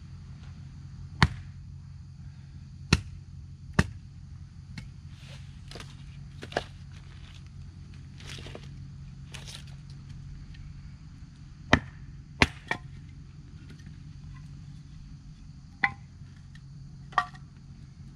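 Cheap hatchet chopping firewood: about nine sharp strikes at uneven intervals, with softer rustling of the wood in between. The owner says this hatchet has never split wood well.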